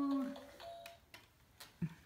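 A toddler's ride-on bouncing pony toy: a short electronic tune note, then a few light, scattered clicks from the toy as it rocks. A shout of "woo" fades out at the start.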